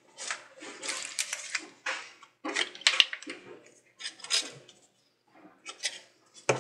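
Plastic packaging crinkling and rustling in irregular bursts as cotton swabs are taken out, with a sharp click about three seconds in and another just before the end.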